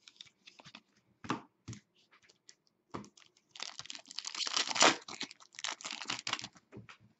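Foil wrapper of a 2015-16 SP Authentic hockey card pack being torn open by hand, crinkling and crackling. A few light clicks and rustles come first, then about halfway through a dense stretch of tearing and crinkling that lasts around three seconds.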